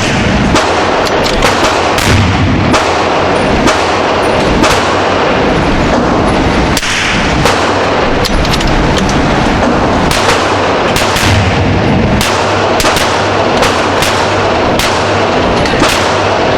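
Gunfire from several guns: many sharp shots at irregular intervals, some close together, over a steady loud background noise.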